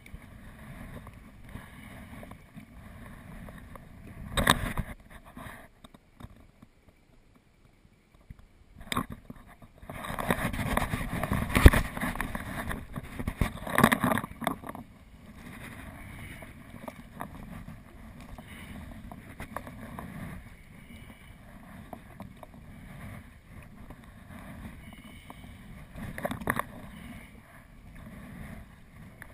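Sea kayak being paddled on calm water: paddle blades dipping and water splashing around the hull, over a steady low rumble of wind on the microphone. There is a brief lull early on, then a louder stretch of splashing and knocking about ten to fifteen seconds in.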